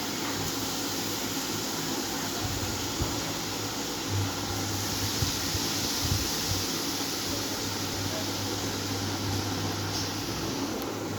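Steady fan-like whirring hum and hiss filling the room, with a few soft taps about three seconds in and again around five to six seconds.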